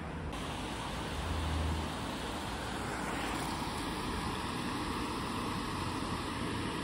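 Steady outdoor background noise: an even hiss over a low rumble, with no single distinct event.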